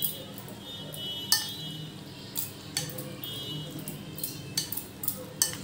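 Spoon clinking and scraping against a bowl while soaked flattened rice (chuda) is stirred into curd: about six short, sharp clinks spread unevenly through the stirring.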